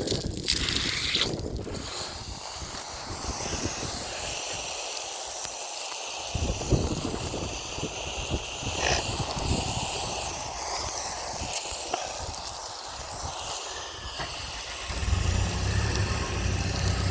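Outdoor background noise: a steady hiss with irregular low gusts of wind on the microphone. About fifteen seconds in, a low engine running at idle comes in and stays.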